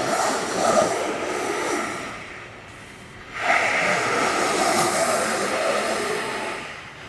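Snowboard ride: a loud, steady rushing hiss of the board sliding and wind on the microphone. It eases off about two and a half seconds in and rises again sharply just after three seconds.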